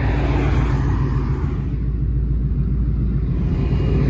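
Steady low rumble of a car rolling slowly in traffic, heard from inside the cabin, with road and tyre noise. The hiss eases off about halfway through and builds again near the end.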